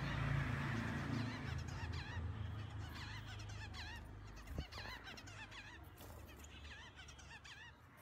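Finches in a cage calling: many short, nasal chirps repeating and overlapping. A low hum fades over the first few seconds, and there is a single click about four and a half seconds in.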